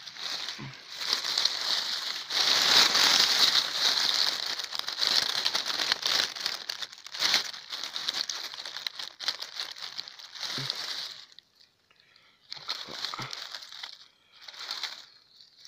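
Dry leaf litter and grass crackling and rustling as a hand pushes them aside to get at a porcino mushroom, in short pauses near the end.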